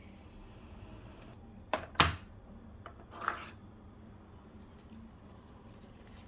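Handling sounds at a capsule coffee machine and its metal mug: two sharp clicks about a quarter-second apart a couple of seconds in, then a brief scrape, over faint room hum. The machine's pump is not running.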